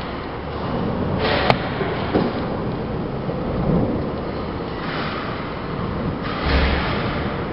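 Heavy thunderstorm rain, a steady hiss that swells in gusts about a second in, around five seconds and again near the end, with a low rumble of thunder underneath.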